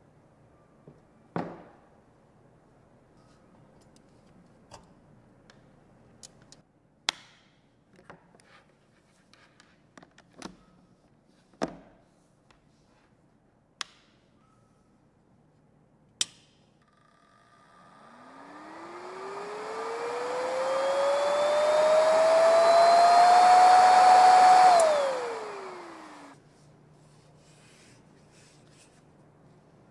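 Scattered clicks and knocks, then the electric fan of a KAKA-F001 coffee bean cooler spinning up with a rising whine and a rush of air that builds for several seconds. It runs briefly at full speed, then winds down with a falling whine and stops.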